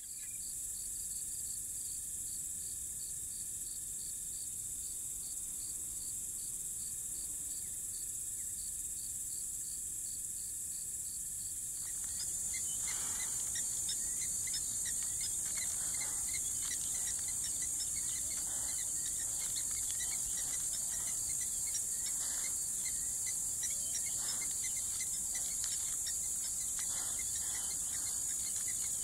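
Steady, high-pitched chorus of insects with a regular pulsing call in the first part. About twelve seconds in the background shifts, and short, scattered bird calls come through over the insects.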